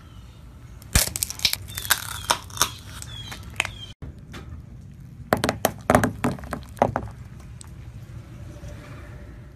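A car tyre crushing a small painted wooden toy dresser: a run of sharp cracks and crunches as it splinters. After a cut, paintballs burst under the tyre in a quick cluster of pops and cracks.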